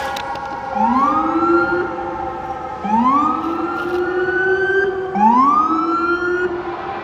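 Fire department sirens: a siren tone sliding slowly down at the start, then an electronic siren giving three rising whoops about two seconds apart. Each whoop climbs quickly, then levels off and holds for about a second and a half.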